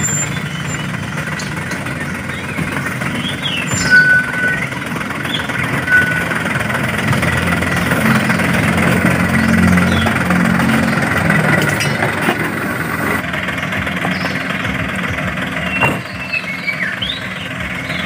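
Radio-controlled MAN dump truck laden with sand, driving with a steady truck-engine hum that swells for a few seconds in the middle. There are a couple of sharp clicks.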